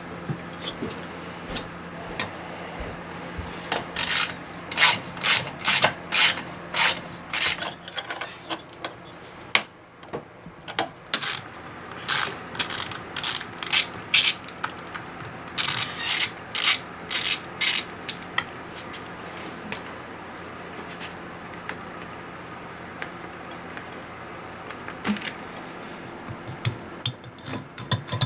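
Hand ratchet wrench clicking through quick back-and-forth strokes, about two a second, in two runs a few seconds apart, followed by lighter ticks and handling noise.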